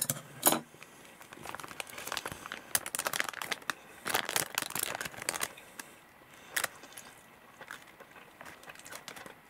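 Thin plastic onigiri wrapper crinkling as it is handled and turned over, loudest between about one and a half and five and a half seconds in. A sharp tap about half a second in, with another near seven seconds.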